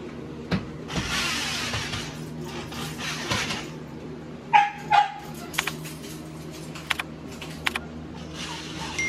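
A dog gives two short barks about half a second apart, with rustling before them and a few light clicks after.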